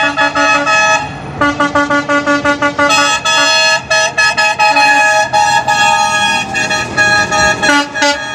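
Truck horns sounding repeatedly as trucks drive past, with several pitches stepping in quick succession like a short tune, over the rumble of passing engines.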